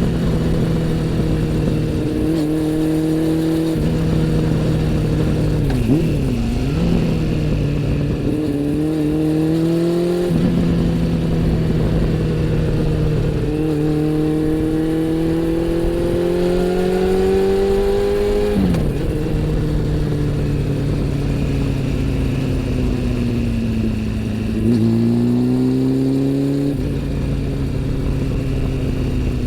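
Honda CB400 Super Four (NC42) inline-four engine under way, its pitch climbing and falling several times as the throttle opens and closes. It drops sharply a few times and jumps quickly upward, briefly louder, a little before the end.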